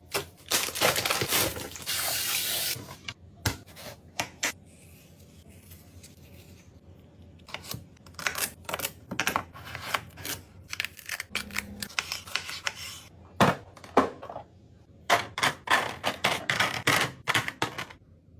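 Hard plastic fridge organizer box being handled: a string of sharp clicks and knocks with rustling, and a longer rustle about two seconds in.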